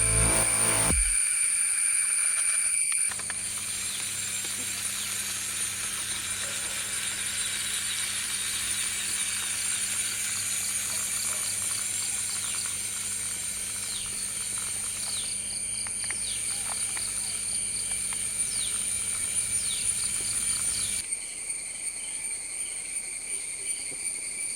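Outdoor ambience of insects trilling steadily at a high pitch, after electronic music cuts off about a second in. A faint low hum runs underneath from about 3 to 21 seconds, and a few short chirps come through in the middle.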